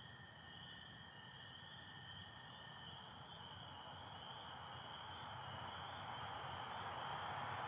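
Chorus of spring peepers, a steady high shimmering trilling, with a long steady American toad trill underneath that stops about three seconds in. Toward the end a vehicle's rushing noise rises and grows louder.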